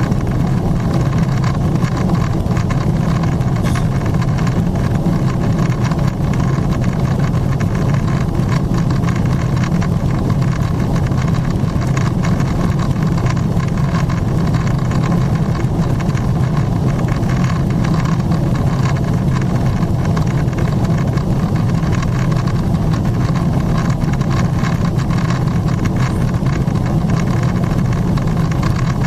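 Steady cabin noise of a Boeing 777-300ER climbing: a low, even drone from its GE90-115B engines and the air rushing past the fuselage, unchanging throughout.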